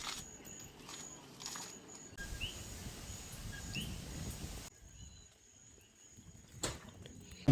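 Quiet outdoor background noise with two short, rising bird chirps a little over a second apart, and a single sharp click near the end.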